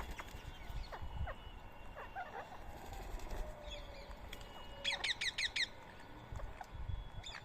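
Birds calling: scattered short chirps, with a quick run of about five sharp notes about five seconds in.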